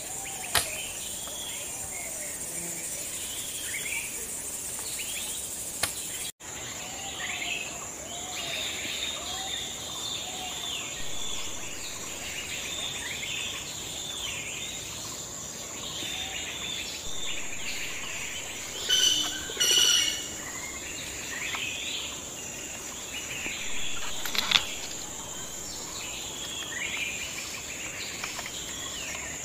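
Forest ambience: a steady high-pitched insect drone under many birds chirping and calling, with a few sharp knocks.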